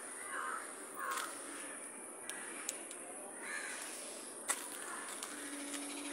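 Crows cawing a few short times over a steady high hiss, with several sharp clicks, the loudest about three-quarters of the way through.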